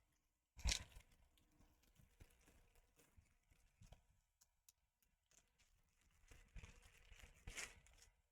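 A short crinkle of a plastic LEGO parts bag being handled about a second in, then faint rustling and small clicks of plastic pieces near the end; otherwise near silence.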